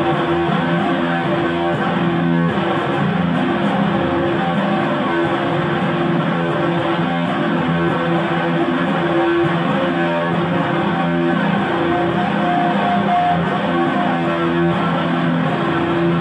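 Loud live band music: strummed electric guitar over a dense, noisy wash, with notes held steadily throughout.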